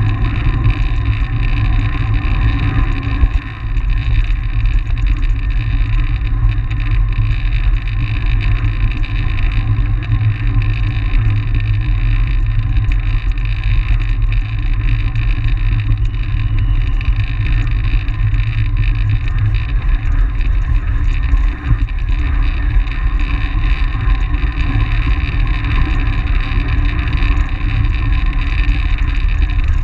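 Wind rushing over the microphone of an action camera mounted on a track bike at race speed, a loud, steady low rumble with a steady hum underneath.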